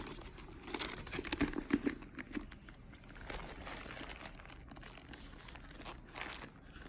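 Packaging being handled and crinkled, with irregular crackling rustles that come in clusters, busiest in the first couple of seconds and again near the end.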